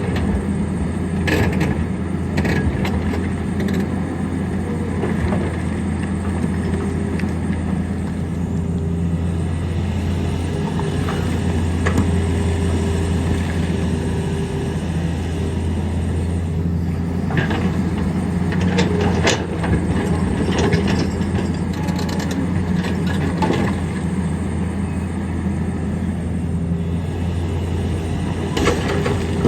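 Tata Hitachi excavator's diesel engine running steadily under load with a constant low hum, while a few sharp knocks and clanks of the bucket on rock break in, about a second in, around two-thirds of the way through and near the end.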